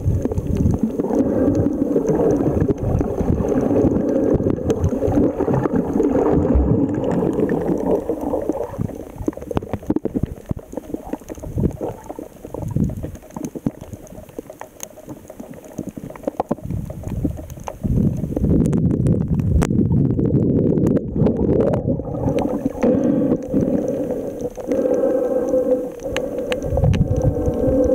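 Muffled underwater noise from a camera held below the surface: water rushing and gurgling against it as it moves, dipping quieter for several seconds in the middle.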